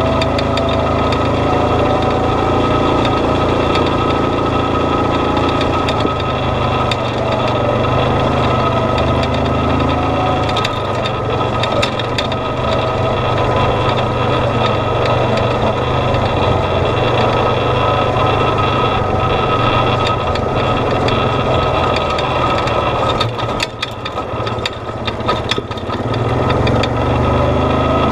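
Off-road vehicle's engine running steadily as it drives slowly along a rough dirt trail, with scattered clicks and rattles. The engine eases off for a couple of seconds near the end, then picks up again.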